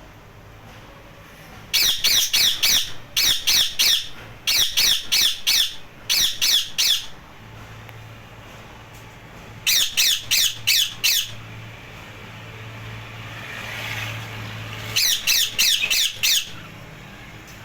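Ringneck parrots screeching: runs of short, harsh calls in quick succession, coming in four bursts with pauses between them.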